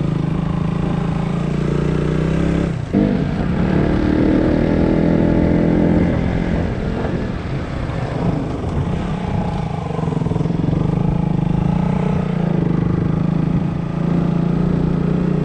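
Motorcycle engine running under way. A sharp knock comes about three seconds in, and the engine note shifts for a few seconds after it.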